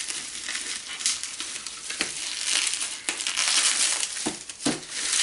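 Clear plastic wrapping crinkling and rustling as it is worked off a boxed vinyl figure by hand, with several sharp crackles.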